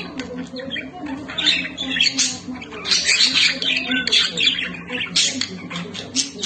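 Lovebirds chattering and squawking in quick, harsh, high calls, busiest from about a second and a half in, over a low steady hum.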